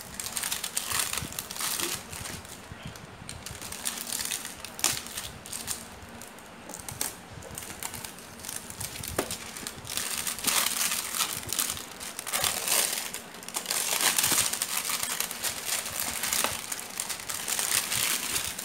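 Clear plastic shrink-wrap being peeled and pulled off a plastic carrying case, crinkling in irregular bursts that are loudest in the second half.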